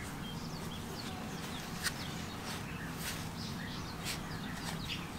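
Small birds chirping in the background, with a few sharp clicks, the loudest about two seconds in, over a steady low hum.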